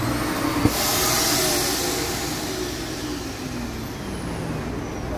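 RV central vacuum system switched on at its floor-level sweep inlet: a click, then a rush of suction air with a motor whine that slowly falls in pitch and fades.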